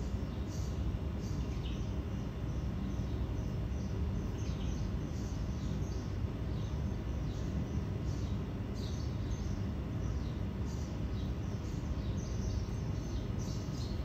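Honey bee swarm cluster buzzing, a steady low hum. Many short high chirps come and go over it throughout.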